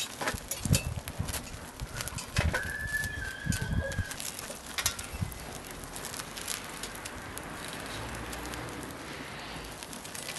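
Charcoal briquettes and their paper bag burning in a stainless steel firebox, with scattered crackles and a few knocks and thumps in the first half as the metal spit stands are pushed in beside it. A bird gives one steady whistle, lasting about a second and a half, starting about two and a half seconds in.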